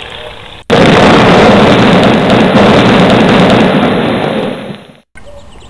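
Explosion sound effect for a nuclear blast: a sudden, loud, dense rumble that starts abruptly under a second in, holds for about three seconds, then fades away.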